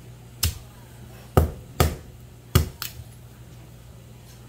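Kitchen knife chopping peeled squash on a thick wooden chopping board: five sharp knocks of the blade going through the flesh onto the wood, unevenly spaced over the first three seconds.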